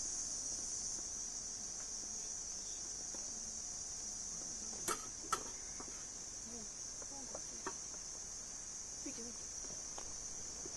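Insects chirring in a steady, high-pitched drone, with two sharp knocks about five seconds in.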